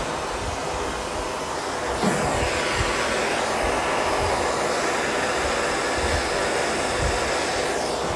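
Handheld gas torch burning with a steady hiss as its flame heats lead body solder on a car's steel body panel.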